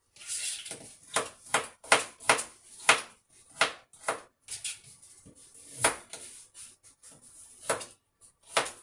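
Knife chopping food on a cutting board: a run of sharp, irregular knocks, about two a second, thinning out around the middle, with the loudest knock a little after halfway.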